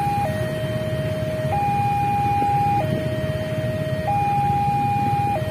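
Railway level-crossing warning alarm: an electronic two-tone signal alternating between a lower and a higher pitch, each held about a second and a quarter, warning that a train is approaching while the barrier is down. A low rumble runs underneath.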